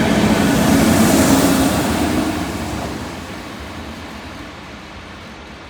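A passing train's rumble, loudest about a second in, then fading steadily as the train moves away.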